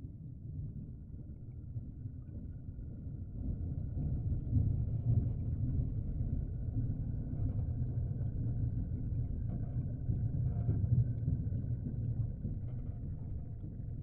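Low, steady rumble of aquarium water, growing louder about four seconds in, with a faint high steady whine above it.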